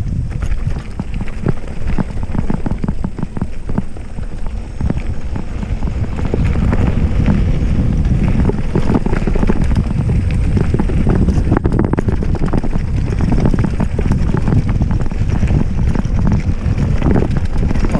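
Wind rushing over an action camera's microphone as a Polygon Siskiu D5 mountain bike rolls down a bike-park trail, with constant knocks and rattles from the bike over the bumps. The rush gets louder about six seconds in as speed builds.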